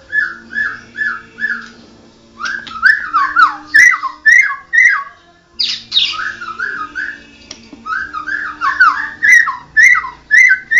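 White-rumped shama (Medan murai, a pied 'blorok' bird) singing loud whistled phrases. It opens with a run of five identical notes about three a second, then gives two longer, varied strings of sliding notes with sharp high chips, each after a short pause.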